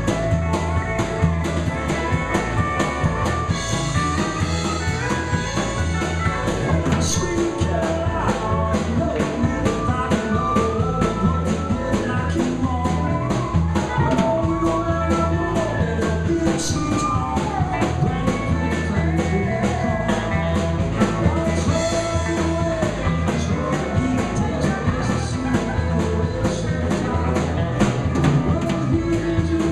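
Live country band playing with a steady drum beat: acoustic and electric guitars, drum kit and pedal steel guitar.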